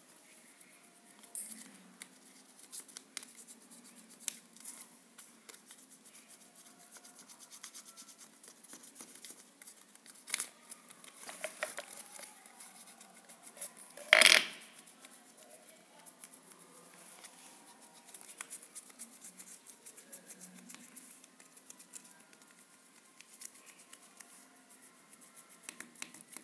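Scattered small clicks and rustles of paper being handled and cut with scissors. One louder, sharp sound stands out about 14 seconds in.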